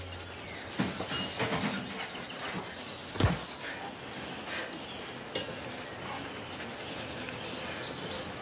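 Small clinks and scraping of kitchen utensils being handled on a worktop, with one dull thump about three seconds in and a sharp click a couple of seconds later.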